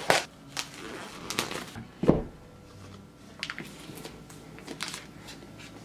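Handling an Apple Mac mini's cardboard retail box: a sharp tap as the lid comes free, some scraping of cardboard, then a dull thump about two seconds in as the box or lid is set down. A few light taps and rustles of packaging follow.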